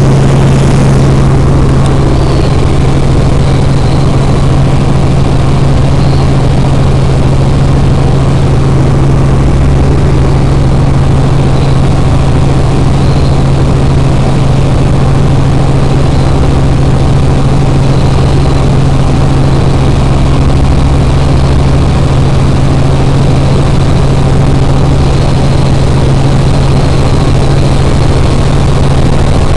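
Robinson R44 helicopter in level flight, heard from inside the cabin: the piston engine and rotors make a loud, steady drone with a strong constant low hum.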